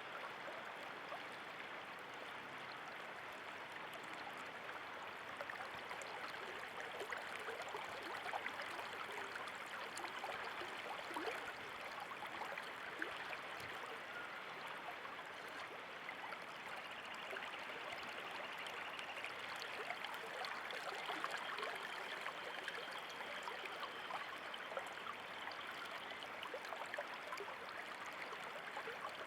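Water flowing steadily, the continuous splashing rush of a small stream with scattered droplet patter.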